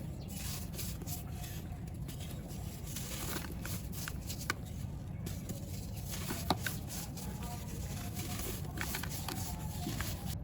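Dry, crumbly material (a sand or charcoal slab or ball) crumbling and crackling as it is broken up, with many small crisp crackles and two sharper snaps partway through, over a steady low rumble.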